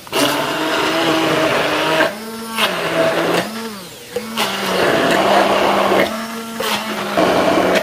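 Braun hand blender running in a tall plastic beaker, its blade chopping sautéed shallots, ginger and garlic into a paste. The motor hum wavers and dips a few times in the middle as the blade bites into the chunks, with a dense chopping noise over it.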